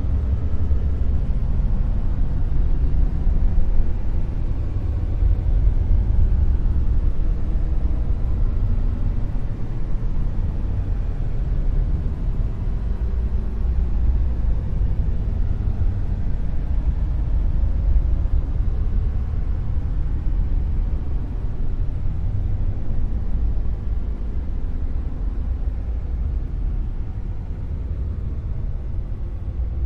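Dark noise: a steady, deep rumbling hiss weighted toward the bass, with little treble, swelling and dipping slowly.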